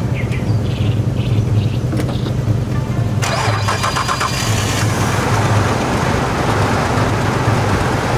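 Nissan Stagea's engine cranked by its starter with a jump starter connected, catching after about a second and a half and running on steadily: an easy start after sitting through the winter.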